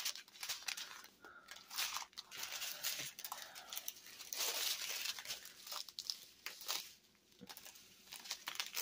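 Small plastic bags of diamond painting drills being handled and shuffled, the thin plastic crinkling in irregular bursts.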